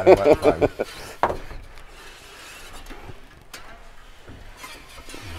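Faint rubbing rasp of a cutting wire being sawn back and forth through the urethane adhesive that bonds a large glass panel in a van body, with a sharp click about a second in.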